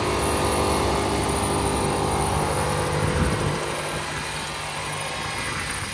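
Ford F-150 pickup engine held at high revs while its front tyres spin in a burnout, a steady engine note with tyre noise; it drops a little about three and a half seconds in.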